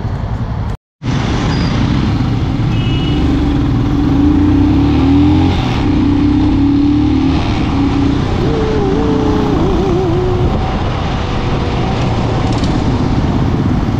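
Motor vehicle noise on a city ride: a steady engine and road rumble with a hiss of wind or traffic. The sound cuts out completely for a moment about a second in.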